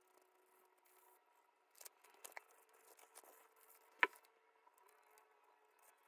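Quiet hand-crafting sounds of paper and tools being handled on a desk: soft rustling with a few small clicks, and one sharp click about four seconds in.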